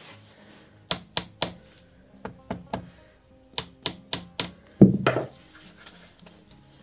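Sharp knocks and clacks in quick groups of three to five, then one heavier thump about five seconds in, as a seized cover on a motorcycle's rear end is rocked and pulled by hand to free it.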